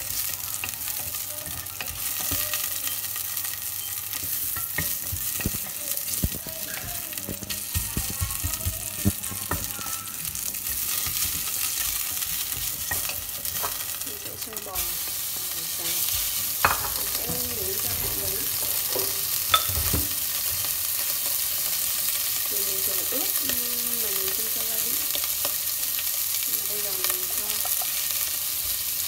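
Garlic and ginger sizzling in hot oil in a stainless steel pot, stirred with a wooden spatula that scrapes and knocks against the metal. The sizzle grows louder about halfway through, with a couple of sharper knocks soon after.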